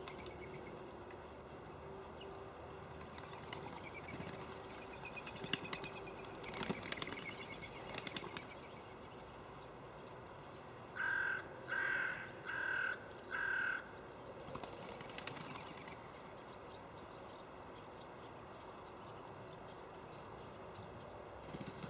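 A crow cawing four times in a row, each caw harsh and about half a second long. Earlier there are scattered faint bird chirps and light clicks.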